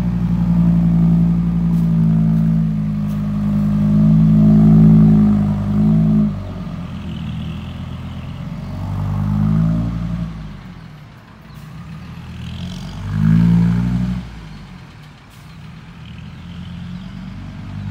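Heavy diesel engine working hard, loud and steady for about six seconds. It then drops and revs up again twice, around nine and thirteen seconds in, before falling away.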